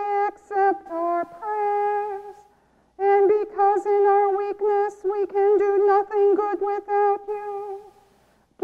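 Small church choir singing a melody in unison without accompaniment. A phrase of about two and a half seconds is followed by a short break, then a longer phrase of about five seconds, and a break near the end.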